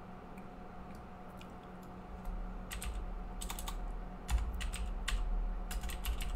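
Typing on a computer keyboard: after about two quiet seconds come quick clusters of keystrokes, with a heavier low thump about four seconds in.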